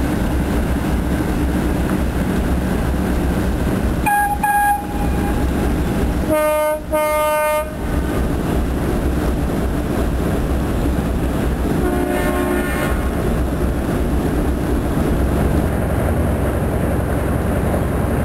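Tugboat horns sounding short blasts over a steady low rumble: one short blast about four seconds in, two louder blasts at a lower pitch around seven seconds, and a fainter horn near thirteen seconds.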